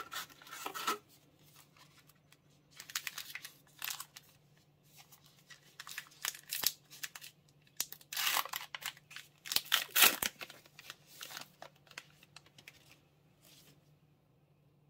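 Baseball cards being handled and flipped through by hand: irregular rustling and the flick of card edges, loudest about eight to ten seconds in, dying away near the end.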